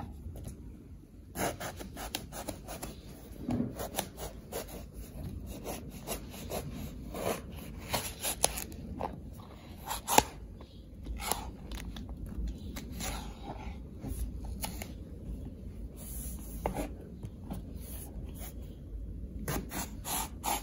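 Chef's knife slicing lengthwise through a Chinese eggplant on a cutting board: irregular scraping strokes of the blade through the flesh and light taps of the blade on the board.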